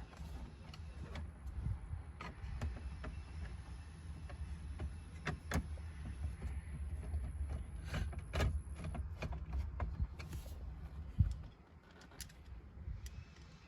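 Scattered clicks and knocks of plastic dash trim and screws being handled and fitted, over a steady low rumble, with one sharper knock about eleven seconds in.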